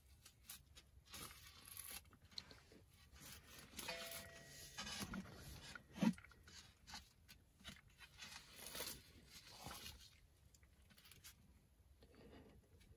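Close, faint handling noise: rustling and crinkling with scattered small clicks, and one sharper knock about six seconds in.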